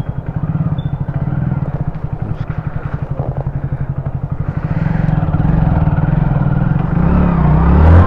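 Motorcycle engine running with an even, fast pulse, at idle or low revs. It grows louder about halfway through and is loudest near the end.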